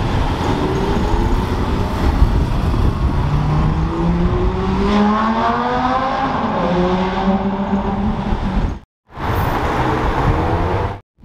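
Lamborghini Gallardo's V10 accelerating away over steady street traffic noise, its engine note climbing for a few seconds, followed by passing city traffic. The sound drops out completely twice, briefly, near the end.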